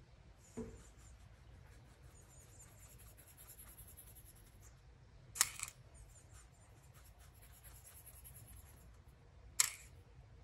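Quiet handling sounds at a baking counter: faint scratching and rustling, a soft thump about half a second in, and two sharp clicks, one about halfway and one near the end.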